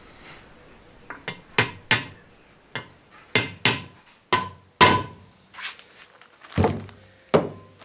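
Hammer striking a steel drift to drive the layshaft rear bearing race into a Land Rover Series 1 gearbox casing. There are about nine sharp metallic strikes, unevenly spaced, in the first five seconds, several with a brief ring, then two duller knocks near the end.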